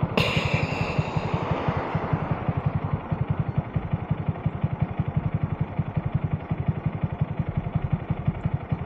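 2022 Honda Grom's 125 cc single-cylinder four-stroke engine idling, a steady rapid low putter of even pulses, with a brief rush of wind or passing traffic in the first second or two.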